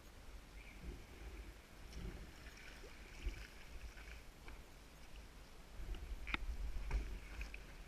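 Kayak paddling: water lapping and splashing around the hull and paddle, over a low rumble that grows louder in the second half. A few sharp knocks or drips sound about six and seven seconds in.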